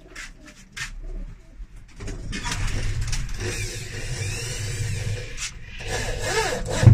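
Makita electric drill running in two bursts against a plywood wall, about two seconds in and again near the end, its motor whine rising and falling, with a sharp knock right at the end. Pigeons coo in the background.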